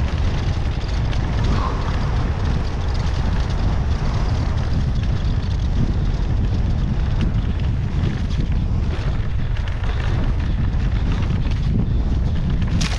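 Mountain bike descending a rough dirt trail at speed: heavy wind rumble on the microphone with tyre noise and a constant clatter of small clicks and rattles from the bike. A brief sharp high-pitched sound near the end.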